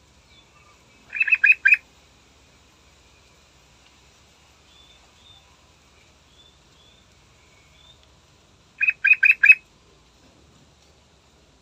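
Yellow-vented bulbul (trucukan) singing two short phrases of four quick notes each, about a second in and again near the end. Faint, higher chirps sound between the phrases.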